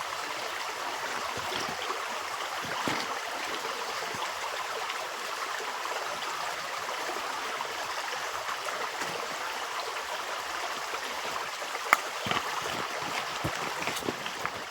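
Small creek running steadily over stones, a continuous babbling of shallow water, with a single sharp click about twelve seconds in.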